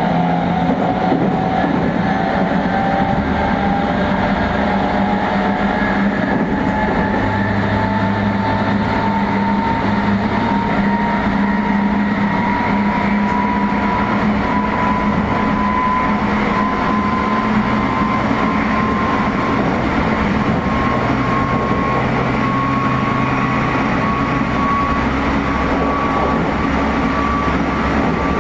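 Meitetsu 3500 series electric train heard from inside a motor car: the high-pitched whine of its Toyo Denki GTO-VVVF traction motors climbs slowly and steadily as the train gathers speed, over steady wheel and rail rumble.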